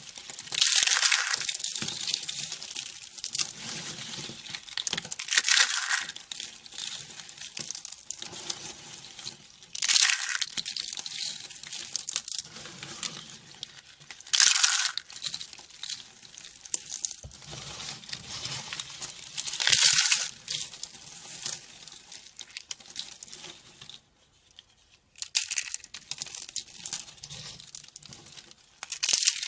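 Dry soap crunching and crackling as it is cut or crushed, with a loud crunchy stroke about every five seconds and softer crackling between; the sound drops out briefly about two-thirds of the way through.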